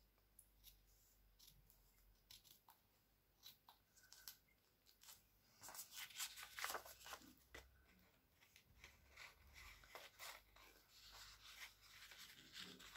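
Scissors snipping slowly through thin printed napkin paper, with faint rustling of the paper as it is handled. The snips are faint and come in scattered clusters, busiest about six to seven seconds in.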